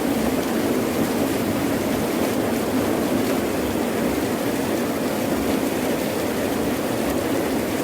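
Heavy rain falling steadily, an even rushing noise with a deep low rumble in it.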